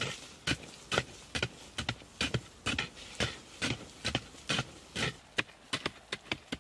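Hand digging tools chopping into hard clay soil: irregular dull thuds at about two to three strikes a second, with the blows of two diggers overlapping.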